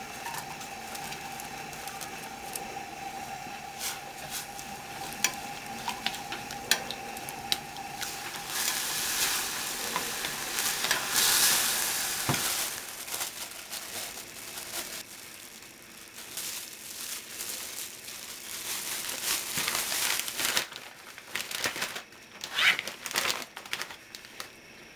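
Pickling liquid bubbling and sizzling in an aluminium pot as dried daikon strips are stirred through it with chopsticks, cooking the liquid down until almost none is left. There are scattered clicks, and the sizzling is loudest for a few seconds around the middle. Near the end a plastic zip-top bag crinkles.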